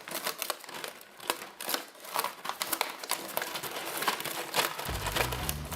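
Paper covering being poked through and torn open by hand, with a dense run of crinkling and crackling.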